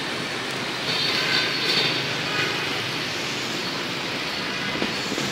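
Steady city street traffic noise, with passing vehicles on a wet road. A few brief higher-pitched tones and a slight rise in loudness come between about one and two and a half seconds in.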